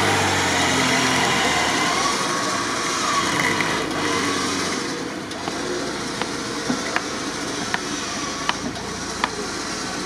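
Lada Niva (VAZ-2121) off-roader's engine running as the car is winched up a steep muddy slope, the engine sound fading after a few seconds. From about six seconds in, a string of sharp clicks at irregular intervals, roughly one or two a second.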